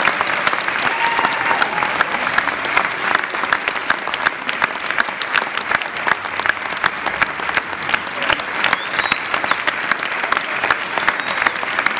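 Audience applauding steadily, with many single claps standing out.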